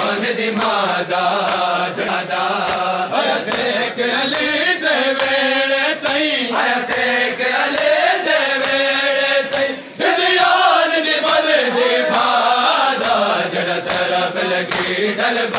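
Crowd of men chanting a noha (Shia lament) in long, melodic lines, with regular thuds of matam chest-beating keeping time. The chant breaks briefly about ten seconds in, then comes back louder.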